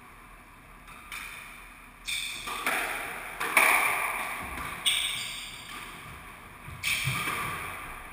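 Squash ball struck by rackets and hitting the court walls during a rally: sharp cracks roughly a second apart, each ringing on in the court's echo.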